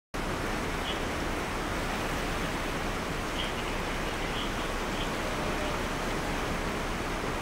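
Steady rushing noise of a flowing creek, cutting in abruptly just after the start.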